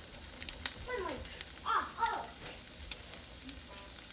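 Diced char siu pork sizzling in a cast iron skillet, with sharp clicks of a metal spoon against a small glass bowl as cornstarch is stirred into water. A short voice sounds in the background twice, about one and two seconds in.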